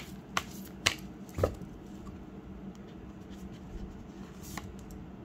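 A deck of cards shuffled by hand: sharp card slaps about every half second for the first second and a half, then only a faint steady hum with one light tap about four and a half seconds in.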